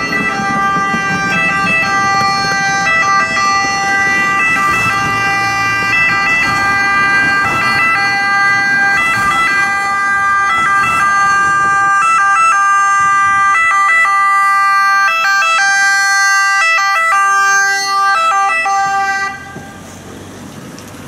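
Italian ambulance's two-tone siren, alternating between two steady pitches as the ambulance approaches and passes, then cutting off suddenly near the end.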